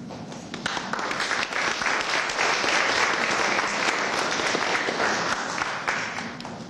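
Audience applauding: clapping starts about half a second in, holds steady, and dies away near the end.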